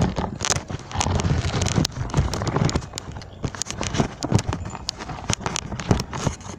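Puppies suckling from their mother dog: irregular wet clicks and smacks. Rustling and knocks in the first few seconds come from the camera being handled.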